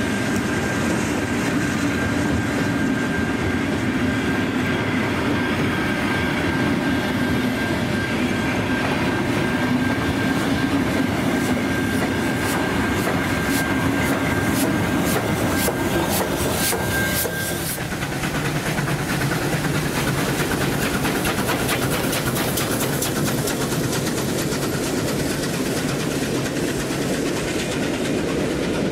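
Steam-hauled heritage passenger train running along the track, its wheels clicking over the rail joints. A thin steady whine stops about halfway through, after a run of sharp clicks, and the clatter then becomes denser and faster.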